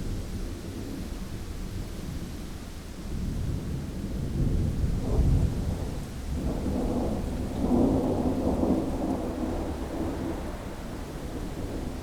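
Thunder rumbling in long, low rolling swells over a steady background hiss, loudest about five seconds in and again around eight seconds.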